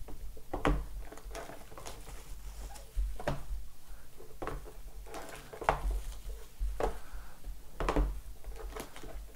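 Small cardboard trading-card boxes being handled and set down on a desktop: a string of light knocks and taps, about one a second, with handling noise in between.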